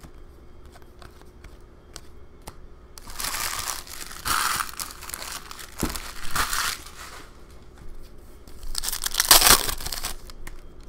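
Foil hockey card pack crinkling and being torn open, in two bouts: a longer one of about four seconds starting about three seconds in, and a shorter, louder one near the end.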